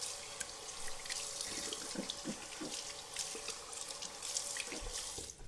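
Tap water running into a bathroom sink, with small splashes and plops against the basin, cutting off suddenly at the very end as the tap is turned off.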